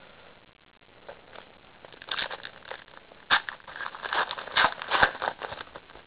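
A trading-card pack wrapper crinkling and tearing as it is opened by hand, in a dense run of crackles and scrapes that starts about two seconds in.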